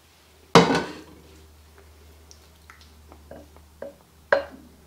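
Kitchenware knocks: a slotted spatula clanking against a frying pan and slow-cooker crock while food is scraped in. Two sharp clanks with a short ring, about half a second in and near the end, with a few light clicks and taps between.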